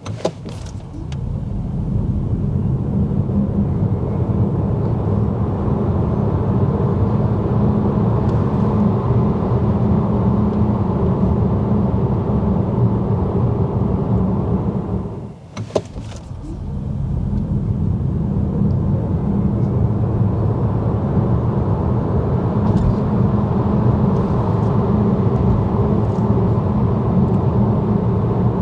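Road rumble of a VW ID.3 electric car driving: a steady tyre-and-road noise that builds over the first couple of seconds, drops away briefly about halfway and builds up again.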